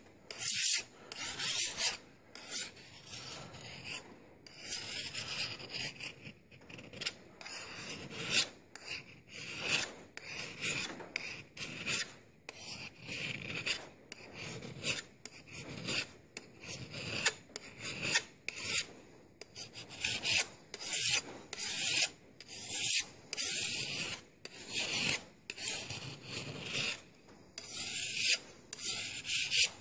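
Flat single-cut raker file rasping along the edge of a Tramontina Bolo machete in repeated strokes, roughly one a second, filing the edge bevel.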